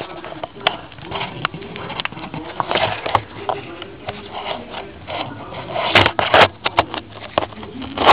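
Close handling and scraping noises from work in a cramped engine bay: irregular rustling and scrapes, with a few sharp clicks and knocks about six seconds in.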